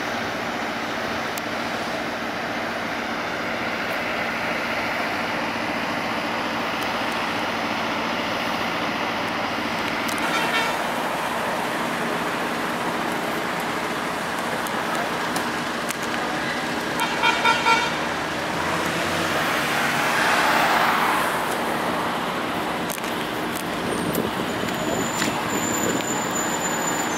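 City street traffic: a steady hum of car engines and tyres, with a short car horn toot about ten seconds in and a quick run of four or five horn honks around seventeen seconds. A few seconds after the honks a vehicle passes close.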